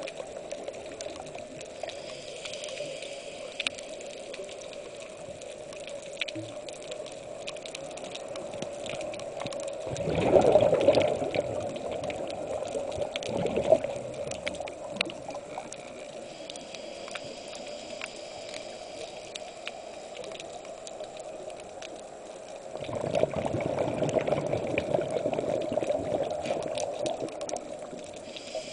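Underwater: a scuba diver's exhaled bubbles rushing and gurgling from the regulator, once about a third of the way in and again for several seconds near the end. A steady hum and faint scattered clicking run underneath.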